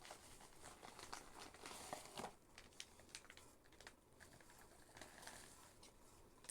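Faint crinkling and clicking of a figure's packaging being handled and taken out, busiest in the first couple of seconds.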